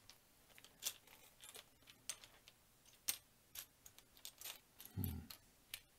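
Small plastic building bricks clicking and clattering as loose parts are sifted through by hand in search of one piece: faint, irregular light clicks, a few each second.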